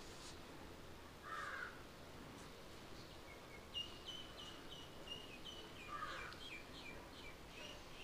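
Birds calling in woodland: two short harsh calls, about a second in and again about six seconds in, and from about three seconds on a string of short, high whistled notes repeating several times a second.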